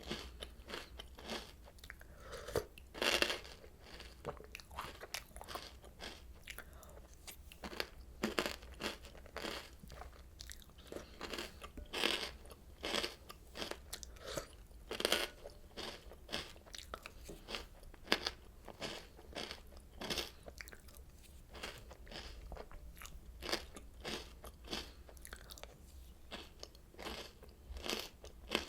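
Close-miked chewing of Oreo O's cereal: a dense, irregular run of crisp crunches as mouthfuls are bitten and chewed, with a few louder bites now and then.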